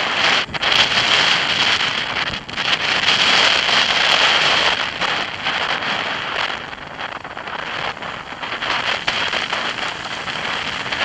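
Wind rushing over the microphone of a bicycle-mounted camera as the cyclist rides downhill at speed, with the hiss of tyres on a wet road.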